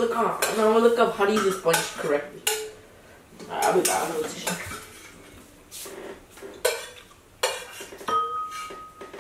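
Metal spoon and chopsticks clinking and scraping against ceramic bowls and a pot while eating, with noodles being slurped in the first half. Near the end one clink rings on for about a second.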